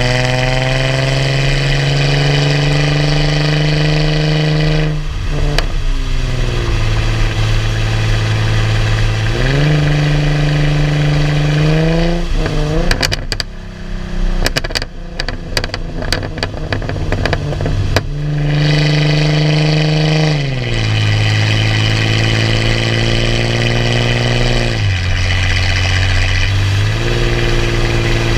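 Chrysler Crossfire SRT-6's supercharged V6 through a straight-piped cat-back exhaust, under way: the exhaust note holds steady, then falls and rises again several times as the throttle and gears change. About halfway through, off the throttle, it crackles and pops for several seconds before the engine pulls again.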